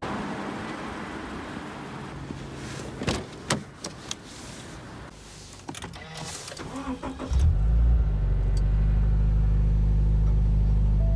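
A car engine starts about seven seconds in and settles into a loud, steady idle. Before that there is only fading background noise with a few sharp clicks.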